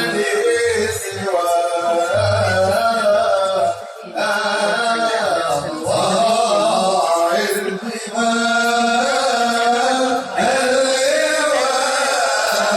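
Male voices singing an Arabic devotional praise song for the Prophet (madih nabawi) in a melismatic, chant-like style.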